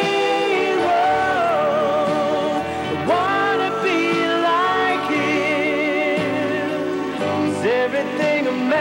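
A slow song playing: long held melody notes that waver in pitch and glide between notes, over a steady band accompaniment.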